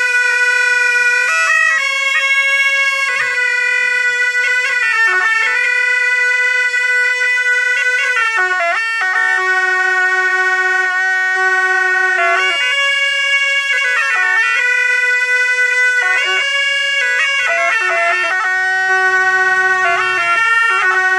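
A pair of gyaling, Tibetan Buddhist double-reed shawms, playing together in a slow melody of long held notes. The sound never breaks, and it moves between notes with quick wavering ornamental turns.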